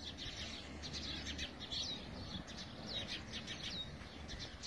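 Small birds chirping continually: many short, high chirps, a few sliding down in pitch, over a low steady background rumble.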